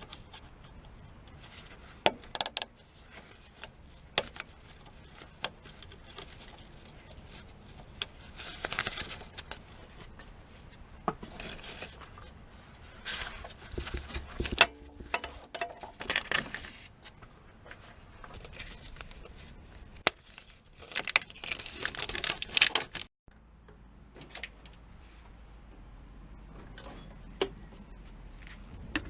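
Irregular metallic clicks, clinks and knocks of hand tools and parts being handled on a car, with short spells of rustling between them.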